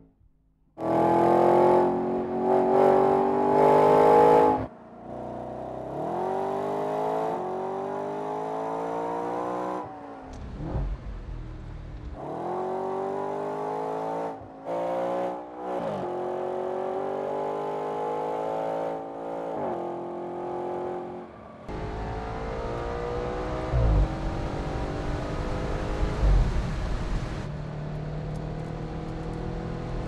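Audi RS 5 Cabriolet's 4.2-litre V8 accelerating hard through the gears: the engine pitch climbs again and again and drops at each upshift, with a very loud high-rev stretch near the start. In the last third the engine note sinks under a low rumble, with a couple of sharp knocks.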